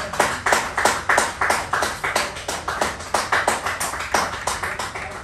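A small group of people clapping by hand, quick uneven claps, several a second.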